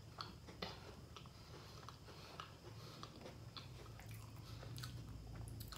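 Faint chewing of a chocolate cream sandwich biscuit, with scattered soft crunchy clicks a few times a second.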